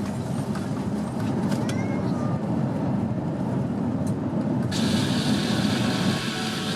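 Airbus A350-900 airliner noise: a steady, loud low rumble. About two-thirds of the way in, a bright hiss suddenly joins it.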